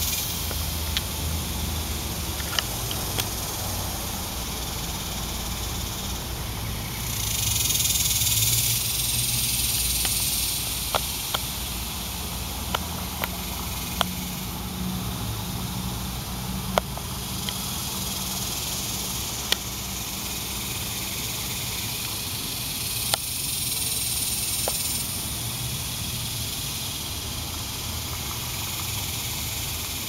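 Chorus of cicadas singing in the trees, a steady high-pitched buzzing hiss that swells louder twice. A few sharp clicks stand out over it.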